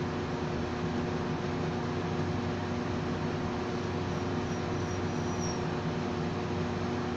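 Steady low mechanical hum with a constant hiss, room tone with no distinct event. A few faint, short high chirps come about four seconds in, the last one longer and rising.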